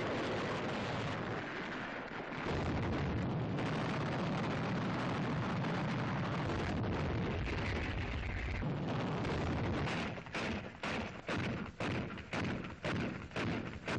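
Battle noise of gunfire and explosions: a dense, continuous din, then from about ten seconds in a steady string of separate gunshots, about three a second.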